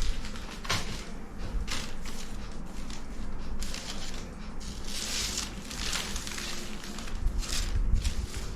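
Irregular rustling and crinkling of handled material, with low bumps of handling close to the microphone.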